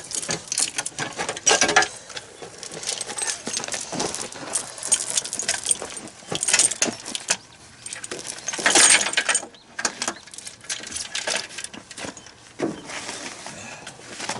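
Hand tools and steel bolts clinking and clattering irregularly during work on the bolted joint of a rubber crawler track, with a denser run of metallic clatter about nine seconds in.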